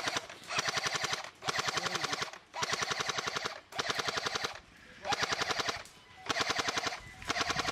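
Airsoft rifle firing on full auto in repeated short bursts, about seven in a row, each a rapid rattle of shots lasting under a second with brief pauses between.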